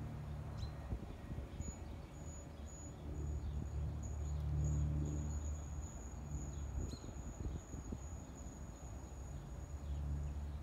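Approaching electric regional passenger train: a low, steady rumble that swells about halfway through, with a thin high whine setting in about two seconds in and holding steady.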